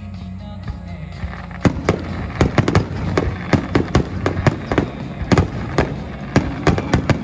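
Fireworks finale: after about a second and a half, a rapid, irregular barrage of shells bursting, several loud bangs a second, over steady background music.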